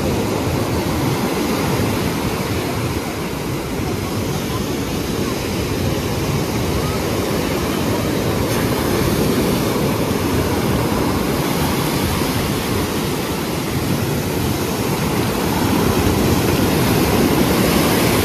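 Ocean surf breaking and washing up the sand, a steady rush of noise that grows a little louder near the end as the waves come in closer.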